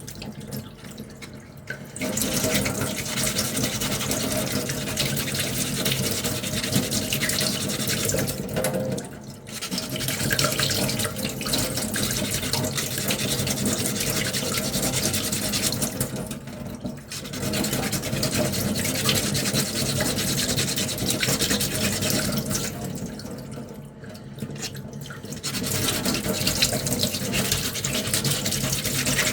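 Sandpaper rubbing back and forth over a small 3D-printed plastic armour piece, hand sanding in long spells of steady scrubbing. There are brief pauses about 9, 17 and 24 seconds in.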